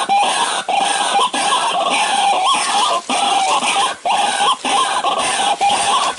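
White-breasted waterhen (ruak-ruak) calls: a loud, unbroken run of harsh repeated 'kruak' calls with brief breaks every half second or so. This is the lure call used to draw the birds in.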